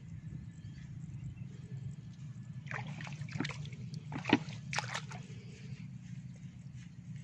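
Wet paddy mud and water squelching and splashing, a handful of sharp wet slaps between about three and five seconds in, the loudest just past four seconds, over a steady low hum.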